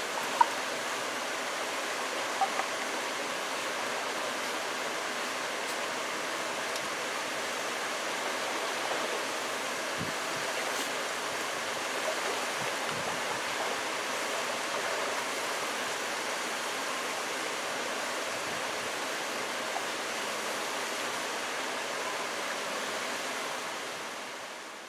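Steady rush of a rocky stream pouring over a small waterfall and rapids. A sharp click sounds near the start, two fainter ones about two seconds later, and the water fades out at the very end.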